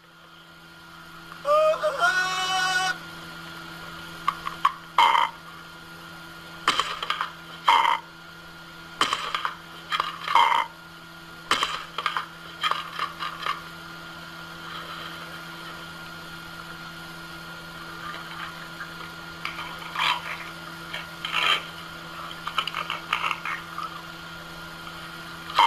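An Amazon parrot calling: one longer squawk about two seconds in, then scattered short, harsh squawks and croaks. A steady low hum runs underneath.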